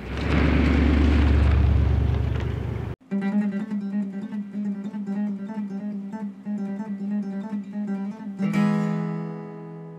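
A loud low rumble for the first three seconds cuts off abruptly. Acoustic guitar music follows: plucked notes in a steady rhythm over a held low note, ending on a chord about eight and a half seconds in that rings and fades.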